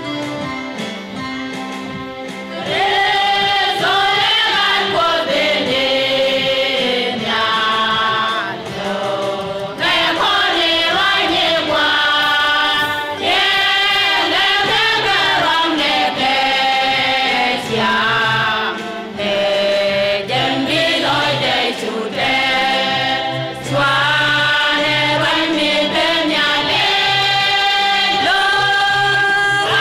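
Women's choir singing a gospel song together, softer at first and then fuller and louder from about three seconds in.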